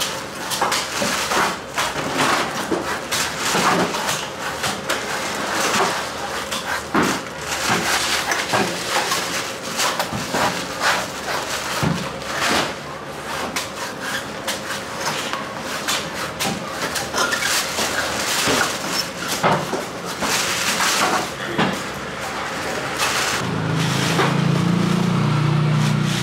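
Coconuts being chopped with a knife: repeated sharp knocks at uneven intervals, with market chatter behind. A low engine hum comes in near the end.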